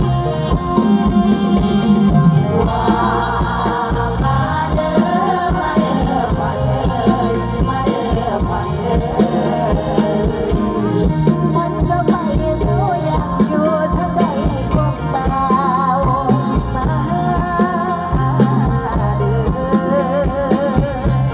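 Mor lam music played live: a singer's wavering melody over an amplified band with a steady drum beat.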